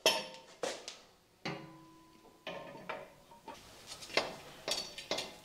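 Irregular light metal clinks and knocks as a motorcycle crash bar and its bolt and washer are handled and fitted against the engine. One knock about a second and a half in leaves a short ringing tone.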